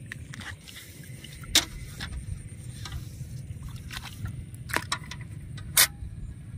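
Shallow water splashing and dripping as a fine fishing net is pulled up and handled in it, with a few short sharp splashes, the loudest about a second and a half in and again near the end, over a steady low rumble.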